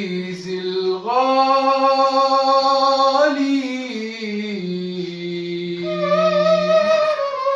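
A slow, voice-like melody of long held notes that slide from one pitch to the next, with a higher second note joining near the end.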